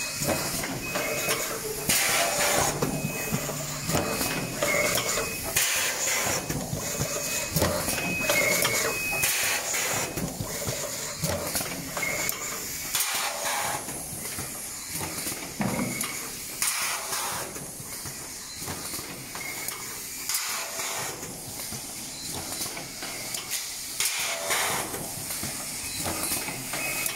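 ST-400A silkscreen gluing box assembly machine running, a steady noisy wash of machinery broken by frequent irregular clicks and knocks of its moving parts.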